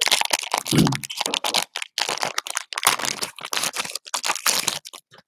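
Foil wrapper of a football trading-card pack crinkling and tearing as it is pulled open and handled. The rustle is close, rapid and irregular, broken by a few short pauses.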